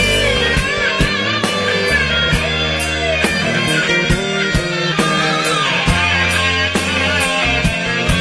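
Instrumental break of a rock ballad backing track: a lead guitar melody over drums and bass with a steady beat.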